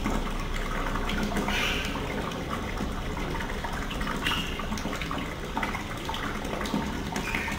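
Water running steadily from a newly installed wall-mounted kitchen tap with a flexible spout into a stainless steel sink, splashing in the basin and swirling down the drain. This is a test run of the new tap and sink drain.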